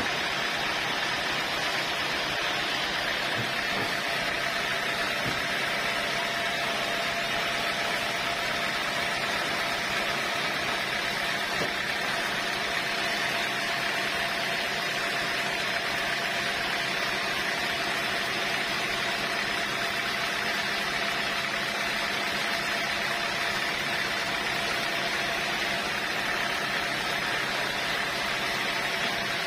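Sawmill machinery running steadily with a constant hum and whine, no change in pitch or load.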